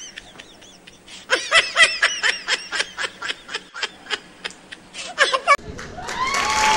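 A person laughing in quick repeated pulses, about four or five a second, that cut off abruptly. Applause with a few held tones then starts near the end.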